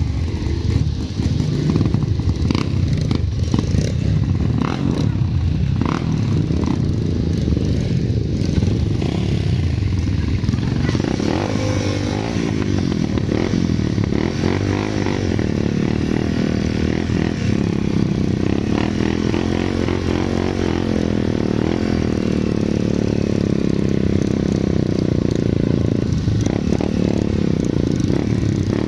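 Dirt bike engines running, first with the bikes standing and then pulling away along a rough dirt trail, the nearest engine note rising and falling with the throttle.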